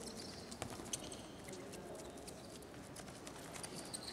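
Futsal play on an indoor hard court: feet patter and the ball is struck in scattered sharp knocks, and rubber-soled shoes squeak on the floor near the end.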